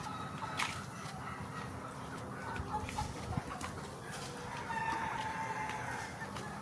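A flock of desi chickens clucking and calling, with scattered short clicks and a longer drawn-out call about five seconds in.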